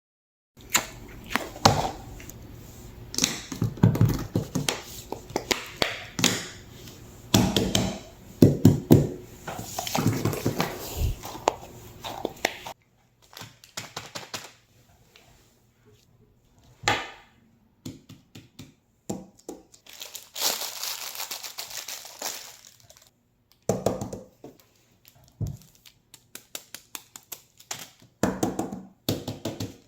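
Fidget toys and their plastic packaging being handled close up: irregular clicks, knocks and crinkling. The sounds come thick for about the first twelve seconds, then in shorter bursts separated by quiet pauses.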